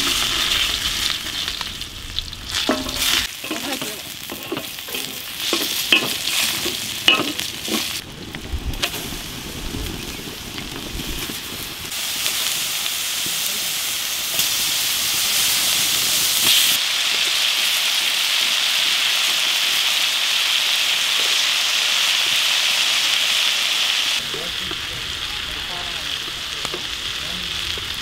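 Garlic cloves and chicken wings sizzling in hot oil on a large iron pan over a wood fire, the garlic being fried until fragrant. A few clicks and knocks come in the first several seconds, and the sizzle grows louder and steadier about twelve seconds in.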